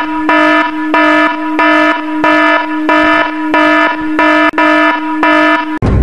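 Electronic alarm sound effect: a low buzzing tone pulsing about three times a second, cutting off abruptly just before the end.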